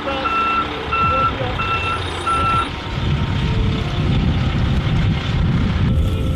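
Reversing alarm on a heavy military vehicle beeping evenly, about four beeps in the first three seconds, then stopping. A low rumbling noise follows.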